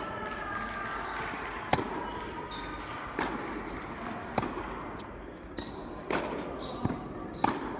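Tennis rally on an indoor hard court: ball struck by racquets and bouncing on the court, about six sharp pops spaced a second or so apart, ringing in the large hall, with a few short high squeaks between them.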